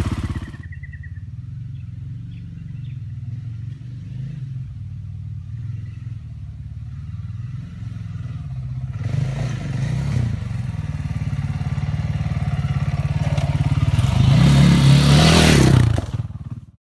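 Trail dirt bike's engine running out of sight, loud at first and then dropping away about half a second in. It carries on at a lower steady level, then grows louder from about halfway as the bike comes back, loudest near the end before cutting off suddenly.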